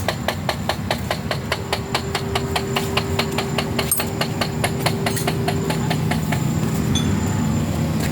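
An engine idles steadily while a sharp tapping repeats evenly, about four times a second, and fades out about six seconds in.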